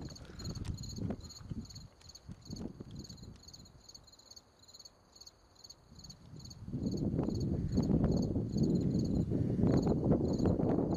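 Crickets chirping in high, evenly repeated pulses, joined about seven seconds in by a louder low rumbling noise.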